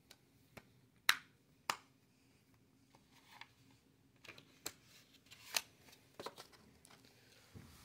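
Plastic Blu-ray case being handled: a scatter of sharp clicks and snaps of the case and its disc hubs, the loudest about a second in.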